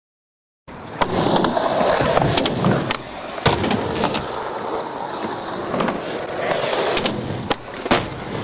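Skateboard wheels rolling on concrete, starting after a brief silence, with several sharp clacks of the board striking the ground during tricks.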